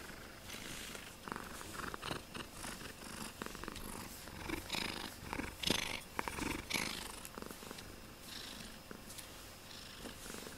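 Domestic cat purring steadily close to the microphone, with rustling and a few sharp clicks in the middle seconds as it shifts its head.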